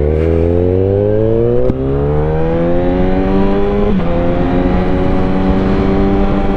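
Motorcycle engine accelerating, its pitch climbing steadily for about four seconds, then dipping with an upshift and holding steady, over a constant rush of wind.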